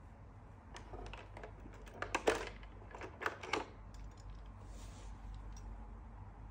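Thin clear plastic tray insert crackling and clicking as a 1:64 die-cast toy car is pried out of its moulded slot: a quick run of sharp clicks over about three seconds, loudest near the middle, then a soft brief rustle.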